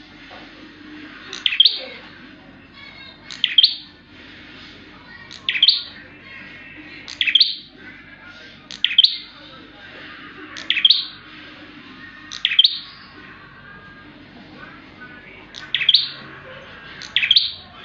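Prenjak bird calling loudly: nine short, sharp, high-pitched call phrases repeated about every two seconds, with a gap of about three seconds near the end. Softer chirping sits underneath.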